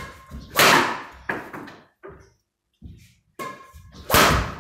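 Badminton smashes with an Apacs Nano 9900 racket: two hard, sharp cracks of the strings hitting the shuttlecock, about three and a half seconds apart, with lighter knocks between.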